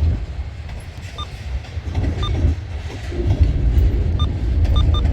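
Freight train rolling past, a heavy low rumble of cars on the rails, with a few short identical beeps.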